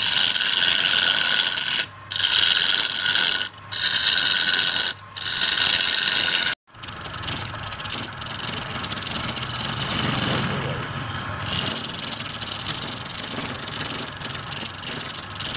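A wooden cylinder spinning on a lathe is rubbed with a wad of wood shavings pressed against it, giving a loud, high rubbing noise in strokes of about a second and a half. After a sudden break about six and a half seconds in, a chisel cuts the end face of the spinning wood, a quieter steady scraping with the lathe running under it.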